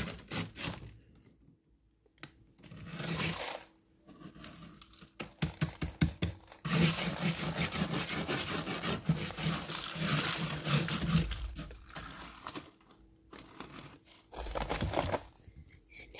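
Hands rummaging in a freezer, scraping and crunching frost and ice, with crinkly rustling in uneven bursts that are busiest and loudest in the middle stretch.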